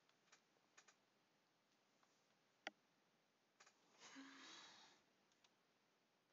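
Near silence with a few faint, scattered clicks from computer input gear, the sharpest about two and a half seconds in, and a soft breath-like noise lasting about a second, starting about four seconds in.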